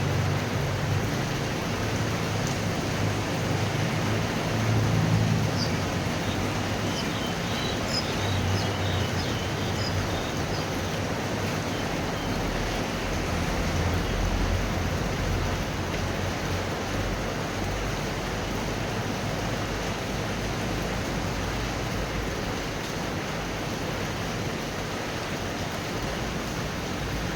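Steady rain from a thunderstorm, with a low rumble underneath that swells and fades.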